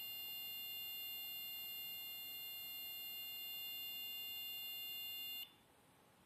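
Small black Arduino-driven buzzer sounding a steady, high-pitched continuous beep that cuts off suddenly about five seconds in, as the potentiometer reading switches it off.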